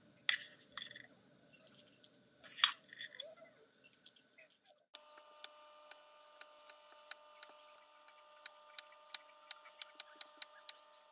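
A spatula scraping and clinking against a pan and glass containers, then, about five seconds in, a kitchen knife chopping ham on a wooden cutting board: short sharp taps about two to three a second over a faint steady hum.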